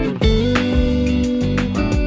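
Background music: an instrumental track led by plucked guitar, with a new chord struck about a quarter second in.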